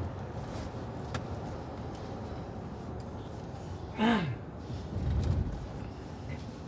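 Steady low road rumble inside a moving car, with a short falling vocal exclamation about four seconds in and a brief heavier low rumble just after.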